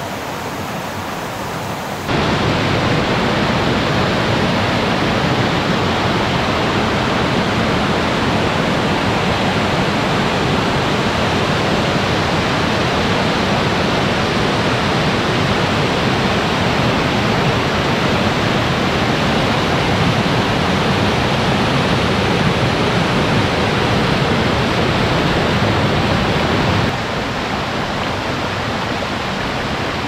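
Mountain stream rushing and splashing over boulders and small cascades in a steady roar of water, swollen with rainwater after a long rainy spell. It gets louder about two seconds in and eases slightly near the end.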